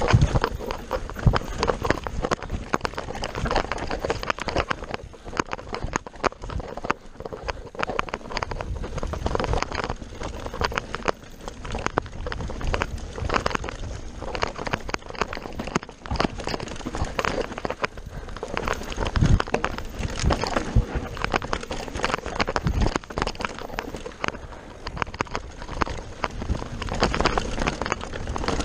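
Enduro mountain bike ridden fast down a rough dirt trail: tyres crunching over dirt and roots and the bike rattling over bumps as many quick, irregular knocks, over a steady low rumble.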